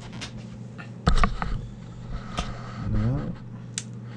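Receiver audio from a Yaesu FT-991A played through a homemade external speaker cabinet and amplifier: a steady low hum and band noise. Loud knocks with a low thud come about a second in as the cabinet is handled, followed by a few lighter clicks and a short rising pitched sound about three seconds in.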